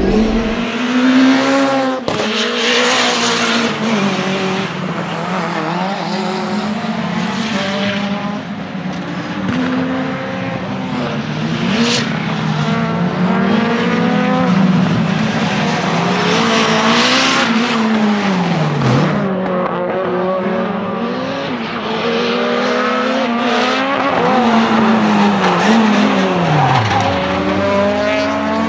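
Renault 5 GT Turbo's tuned 1.4-litre turbocharged four-cylinder engine at full race effort, its pitch climbing under acceleration and dropping sharply on lift-off and downshifts several times.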